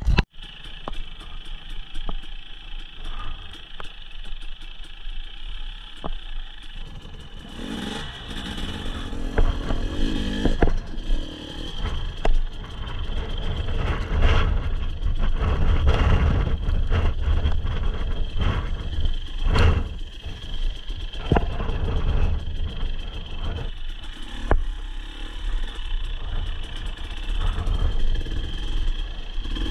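Enduro dirt bike heard from its own rider, engine running and rising and falling with the throttle over a rough grassy trail, with clatter and sharp knocks from the bike over bumps.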